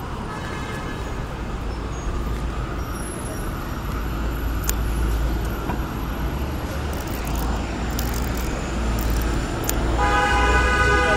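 City street traffic: a steady low rumble of passing vehicles, with a car horn sounding about ten seconds in, held for over a second.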